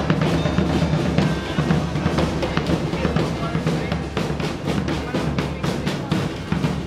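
Live street drumming: a band of large bass drums beaten with sticks and hand drums (djembes) keeping up a steady rhythm of many strikes.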